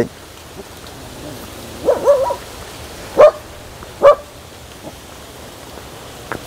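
A dog barking: a handful of short barks about a second apart, the first a quick double, the last one fainter.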